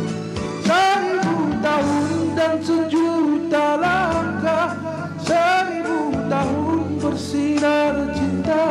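A man singing a sustained melody with vibrato into a microphone over instrumental backing music.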